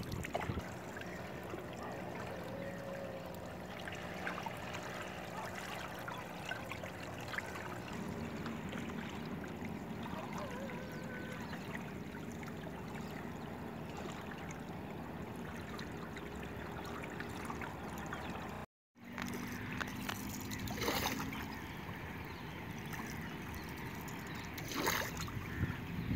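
Water lapping and trickling against the hull of a small outrigger boat, a steady watery wash. In the last part a few short, sharper splashes stand out.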